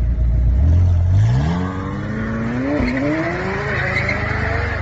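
A McLaren supercar's twin-turbo V8 accelerating hard. The engine note climbs steadily in pitch from about a second in, with a brief dip about three seconds in.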